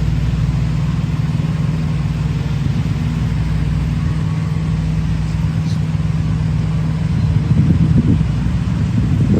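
Semi-truck diesel engine idling with a steady low hum; a rougher, louder low rumble joins in near the end.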